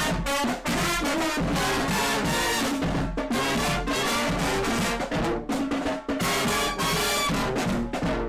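Marching band playing: sousaphones and other brass over a steady drum beat.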